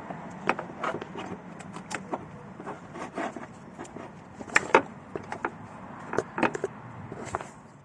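Irregular clicks, knocks and clatter of tools and metal car parts being handled, the loudest knocks around the middle, over a faint steady low hum.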